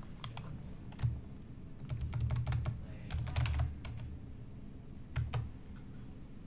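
Typing on a computer keyboard: quick runs of keystrokes in a few short bursts with pauses between, the densest bursts about two and three and a half seconds in.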